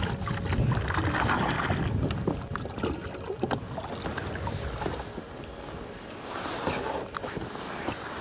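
Wind and water noise around a small inflatable boat, with a low rumble in the first couple of seconds and many small clicks and knocks of handling throughout.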